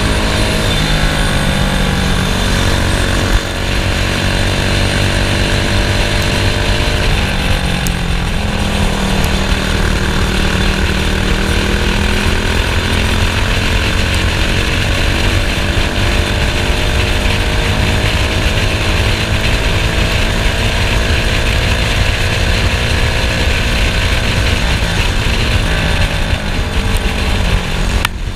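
Racing kart engine running hard, its pitch dropping as it slows for corners, about a second in and again around seven seconds, then climbing steadily for over ten seconds as it accelerates down a straight.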